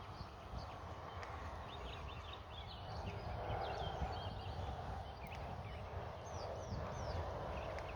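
Wind buffeting the microphone with a low rumble, and small birds chirping. The birds give quick runs of short falling notes a few seconds in and again near the end.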